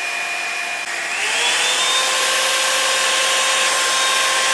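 Revlon One Step paddle-brush hair dryer running on low, then switched up to high about a second in: the motor whine rises in pitch and the rush of air grows louder, then holds steady. High gives more airflow but about the same heat as low.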